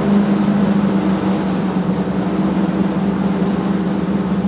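Boat motor running steadily under way, heard from inside the enclosed cabin as a loud, even drone with one steady pitch.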